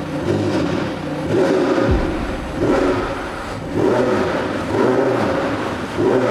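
McLaren 720S's 4.0-litre twin-turbo V8 revved while standing in neutral: about six short blips of the throttle, roughly a second apart, each rising in pitch toward 4,000 rpm and falling back to idle.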